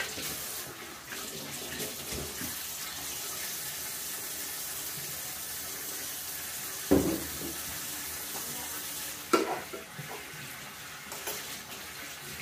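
Metal spoon stirring and scraping steamed vermicelli in a ceramic serving dish, knocking sharply against the dish twice, about seven and nine seconds in, over a steady hiss.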